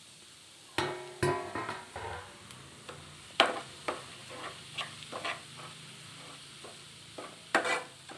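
Spatula stirring and scraping semolina as it roasts in a metal pan: irregular scraping strokes, a few with a brief metallic ring, over a low steady hum.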